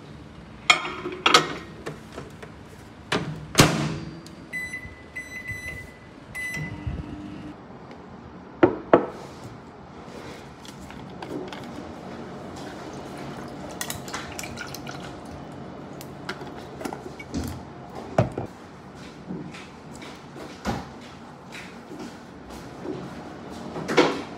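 A microwave oven's door knocks shut and its keypad beeps several times in quick succession; afterwards, a run of scattered clinks and taps of a utensil against a glass food container.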